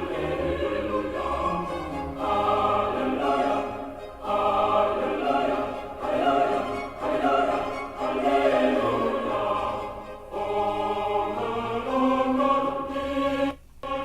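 Choral music played back through Fluance powered bookshelf speakers: sung phrases of a couple of seconds each, with short breaks between them and a brief gap near the end.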